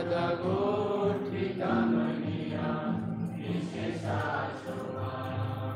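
Devotional chanting: several voices singing a mantra together in long held notes over steady musical accompaniment.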